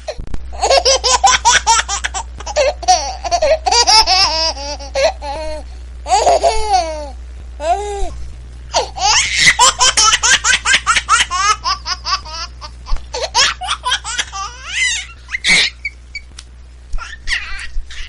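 High-pitched laughter in repeated bouts of quick, rapid bursts, over a steady low hum.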